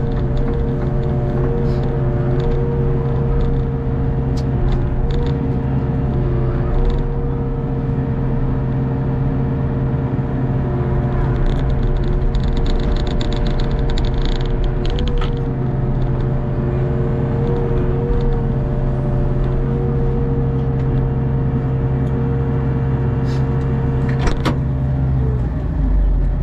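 Hitachi ZX48U mini excavator running steadily at working speed, engine hum with hydraulic whine as the boom and bucket move, and a few scattered knocks. The low engine note changes shortly before the end.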